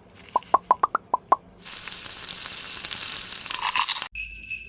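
A quick run of six short, bright pops, then about two seconds of crackling hiss that cuts off abruptly, followed by a steady high ringing chime: edited-in cartoon sound effects.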